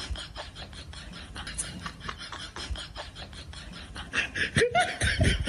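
A cat's paws tapping and scrabbling on a wooden floor in a quick run of light taps as it hops sideways. Near the end a louder voice cuts in.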